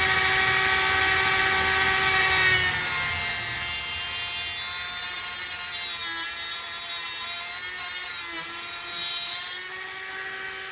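Small electric power tool running at high speed and cutting a plastic 12-gauge shotgun shell down to size; its steady whine drops and wavers in pitch from a few seconds in as the cut takes load.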